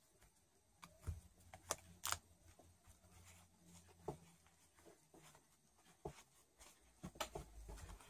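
Faint handling noise: hands rustling and tugging the crocheted yarn curls of a doll's wig, with scattered soft clicks and taps.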